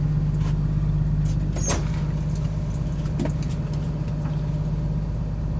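Steady low hum of an idling engine, with a few light clicks and knocks over it.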